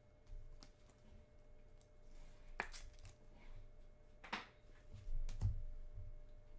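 Faint handling of trading cards in clear plastic sleeves: a few scattered clicks and rustles, with a soft thump on the table near the end.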